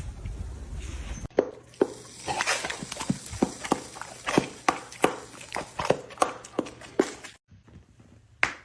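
A string of sharp taps, like steps on a hard surface, about three a second, starting suddenly about a second in and stopping near the end.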